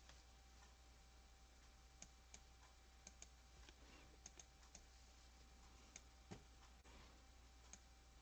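Near silence with faint, scattered clicks from operating a computer while a file is being opened.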